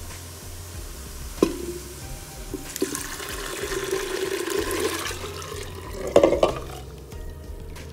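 Chicken stock (yakhni) poured from a bowl into a cooking pot of shredded chicken and vegetables. A single knock comes about a second and a half in, the liquid pours steadily for a couple of seconds from about three seconds in, and a louder splash follows about six seconds in.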